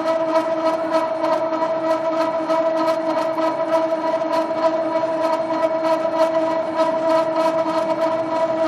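Motorised conveyor belt running steadily: a constant motor hum with a pitched whine, and a dense stream of small irregular clicks and rattles from the belt and rollers.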